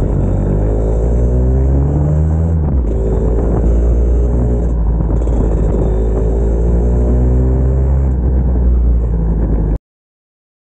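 Motorcycle engine pulling hard through the gears with wind rushing over the microphone: its pitch climbs, drops at an upshift about two and a half seconds in, then climbs again. The sound cuts off abruptly near the end.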